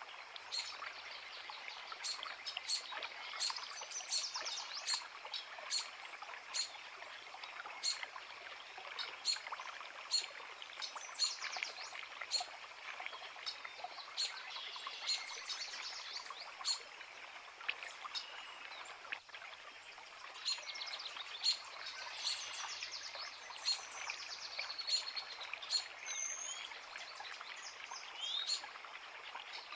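A creek running with a steady rush of water, while several songbirds sing and chirp over it in frequent short, sharp notes.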